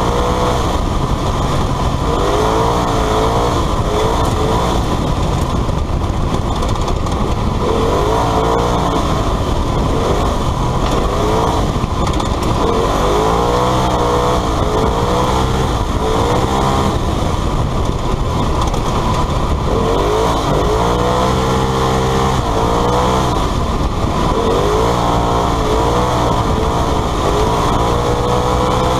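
Polaris RZR side-by-side engine running hard, heard from inside the open cockpit, its pitch rising and falling every few seconds as the car speeds along a dirt rally stage, over steady road and wind noise.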